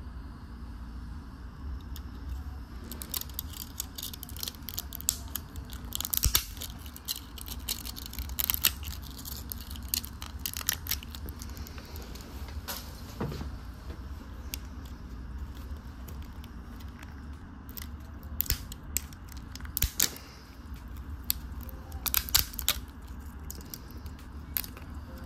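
Plastic 3D-printed support material snapping and crackling as it is broken away from a black print: irregular clusters of sharp cracks with pauses between, over a steady low hum.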